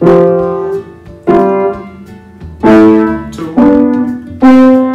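Piano played by a child: about five notes or chords struck one at a time at a slow, uneven pace, each left to ring and fade before the next.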